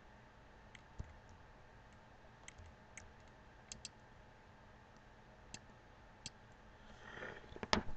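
Computer mouse clicking: scattered single clicks and quick pairs every second or so over a faint steady hum, with a louder click near the end.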